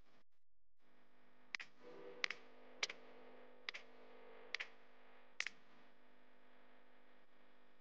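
Computer mouse clicking six times, each click a quick press-and-release pair, over a faint steady hum.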